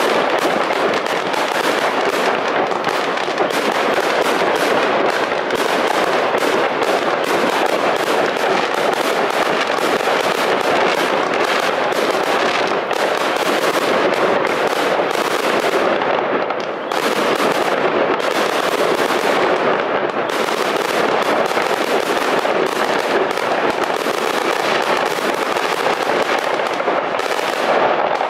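Fireworks display: a dense, continuous barrage of bursting shells and crackle, easing briefly a little past halfway before building again.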